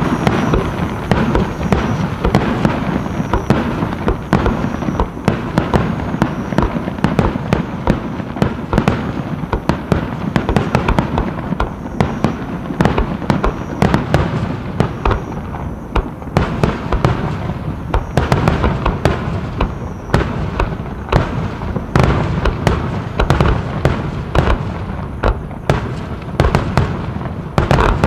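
Aerial fireworks display in a dense barrage: many sharp bangs and crackles a second over a continuous low rumble of overlapping bursts.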